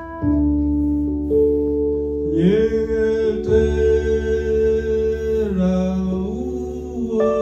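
Electronic keyboard playing sustained chords over a low bass. From about two seconds in, a man sings along into a microphone, holding and bending long notes.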